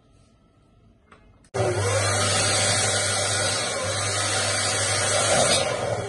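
Electric balloon inflator pump switching on suddenly about a second and a half in and running steadily with a low hum, blowing up a latex balloon held on its nozzle.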